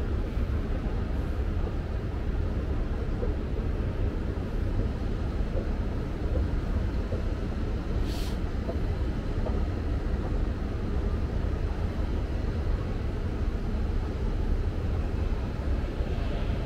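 Steady low rumble of shopping-mall ambience, with a brief hiss about eight seconds in.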